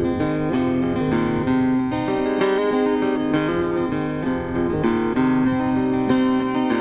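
Solo acoustic guitar, strummed and picked in a steady rhythm, playing the instrumental introduction of a folk song.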